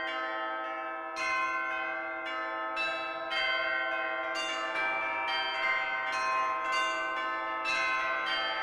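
Bells ringing, fresh strikes coming about once a second and each left ringing on under the next.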